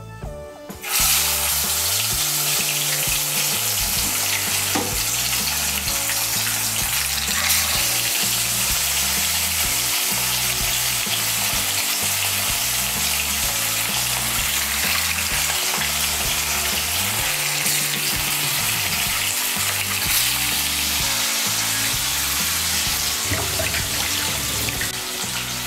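Katla fish steaks, rubbed with salt and turmeric, sizzling as they fry in hot mustard oil in a kadai. The sizzling starts suddenly about a second in, when the first piece goes into the oil, and stays steady as more pieces are added.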